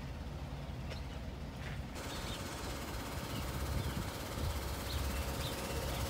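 Farmyard ambience: small birds chirping now and then over a steady low rumble and a faint steady hum. The background changes abruptly about two seconds in, from a quieter rumble with a few light clicks to the louder outdoor sound with the chirps.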